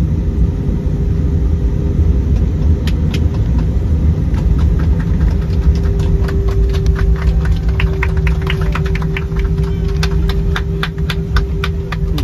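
Jet airliner cabin noise on the ground: a steady low engine rumble with a steady hum. From about three seconds in there is a run of sharp clicks that come faster toward the end.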